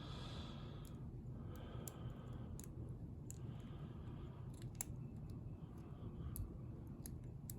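Faint scraping of a lock pick working the pins inside a small BASI padlock, with scattered light clicks as the pins move.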